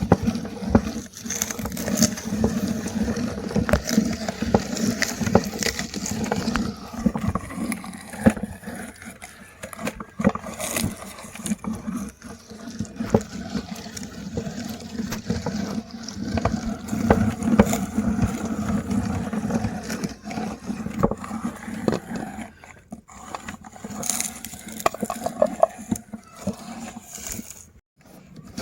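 Meat grinder crushing mini chocolate candies: a dense run of crunching and cracking over a steady low hum, thinning out near the end.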